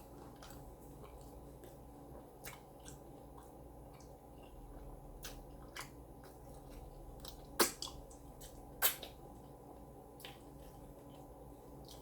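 Close-up eating sounds from a person chewing a taco: scattered short mouth clicks and smacks, with two louder clicks about two-thirds of the way through.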